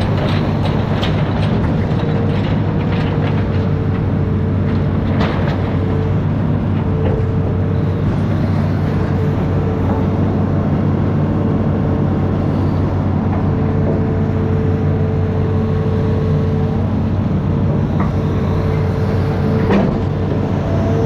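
Amphibious excavator's diesel engine running steadily, with a higher whine that comes and goes and scattered knocks and clanks, several in the first few seconds and a couple near the end.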